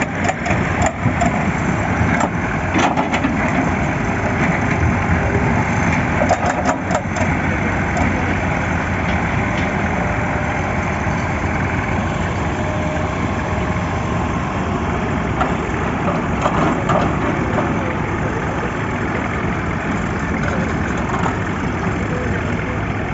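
Diesel engine of an excavator running steadily, with a few sharp knocks in the first seven seconds.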